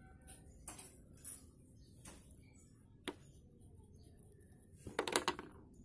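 Fingers breaking and crumbling a damp cake of pressed slate pencil powder: a few soft, scattered crunches, then a louder cluster of crumbling about five seconds in.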